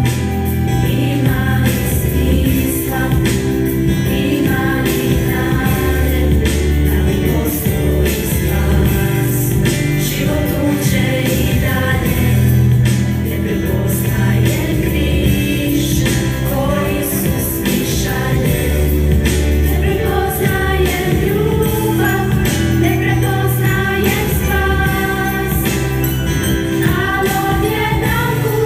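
A girls' vocal group singing a spiritual song together, over a steady instrumental accompaniment with a strong bass line.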